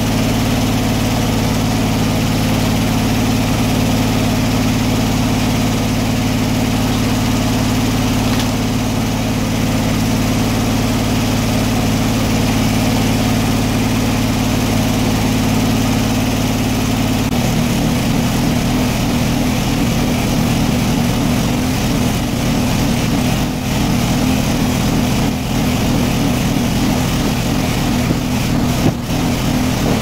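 The engine powering a circular sawmill runs steadily without cutting. A little over halfway through, its even note changes and turns rougher.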